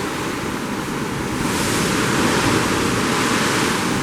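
Steady rush of ocean waves below a cruise ship's balcony, swelling a little about a second and a half in, with wind buffeting the microphone.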